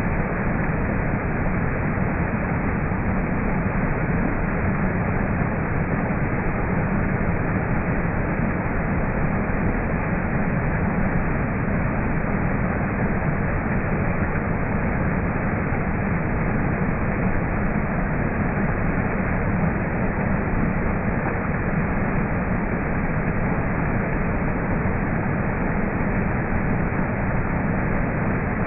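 Waterfall: a steady, unbroken rush of falling water, heaviest in its low, deep part.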